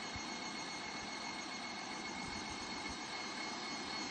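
Stand mixer running steadily on high speed with a steady high whine, its wire whisk whipping heavy cream toward stiff peaks.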